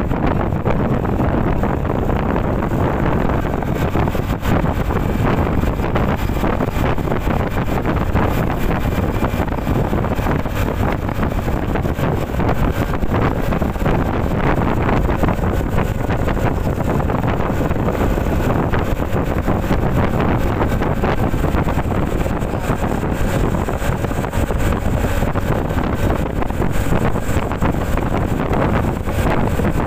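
Steady wind noise on the microphone with the engine and tyre noise of a motor scooter cruising at road speed.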